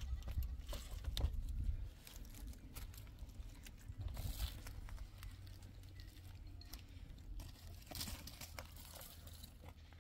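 Fabric rustling and dry twigs scraping and crackling as embroidered cloths are handled and hung over bare tree branches, in scattered soft crackles and clicks. A low rumble stops about two seconds in.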